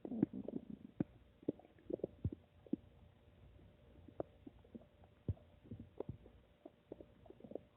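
Human stomach gurgling: a longer gurgle in the first second, then many short irregular pops and squelches.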